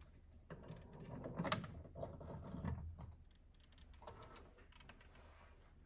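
Faint knocks and rattles of a fuel pump module being worked up and out through the fuel tank's access hole, with a few sharper clicks, the loudest about a second and a half in.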